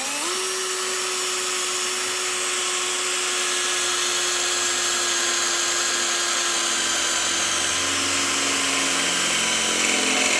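JPT 21 V cordless drill running on its second speed, drilling a hole in metal with a 6 mm bit: the motor spins up right at the start into a steady whine, and after about seven seconds lower, uneven tones join it as the bit cuts.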